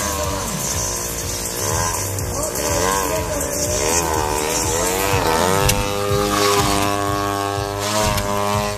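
Single-cylinder two-stroke 50 cc gasoline engine of a large RC aerobatic plane in flight, its pitch swooping up and down with throttle and manoeuvres, then holding fairly steady from about six seconds in.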